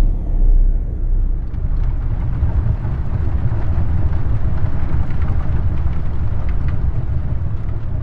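Explosion sound effect for an asteroid impact: a loud, deep, continuous rumble with faint crackling through it.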